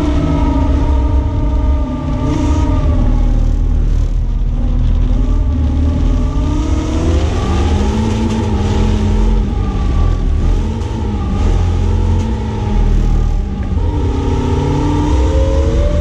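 BMW E36 318is four-cylinder engine under racing load, heard from inside the cabin. The revs climb and drop again and again through gear changes and corners, with brief dips as the driver lifts, over a steady hiss.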